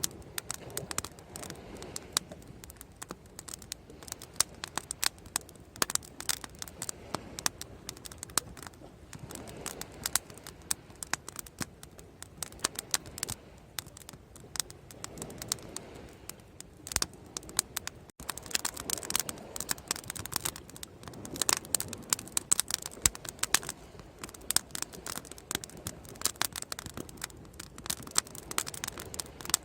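Bonfire crackling: an irregular, steady stream of sharp pops and snaps from burning wood over a soft hiss.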